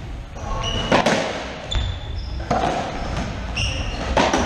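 Racquetball in play in an enclosed court: the ball struck by racquets and smacking off the walls and floor, with two loud echoing cracks, about a second in and near the end, and fainter knocks between. Short high squeaks of sneakers on the hardwood floor come now and then.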